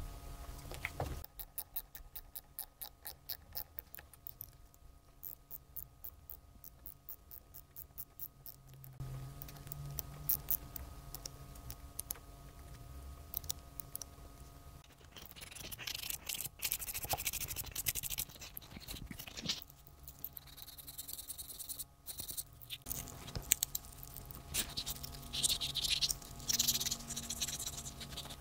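Small sharp clicks, about three a second, for several seconds while a crimp terminal is worked onto the wire ends. Then sandpaper scratching and rubbing against a small metal switch lever, in louder spells toward the end.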